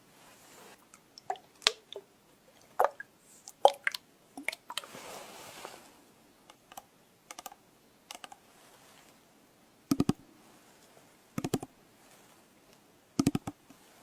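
Close-miked ASMR hair-care trigger sounds: scattered sharp taps and clicks from props being handled, a soft hiss lasting about a second midway, then three quick rattling clusters of clicks near the end.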